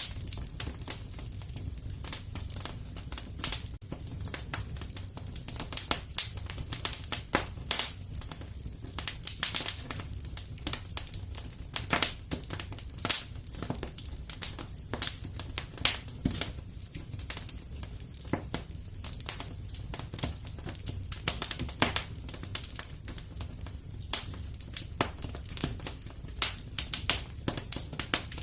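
Fireplace crackling steadily: irregular sharp pops and snaps from the burning wood over a low, even rumble of the flames.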